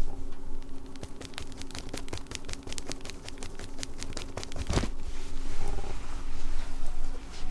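Rapid light clicking and rustling as a feather cat toy is twitched across a rug, about ten ticks a second. About five seconds in comes a single thump as the cat pounces, followed by softer scuffling.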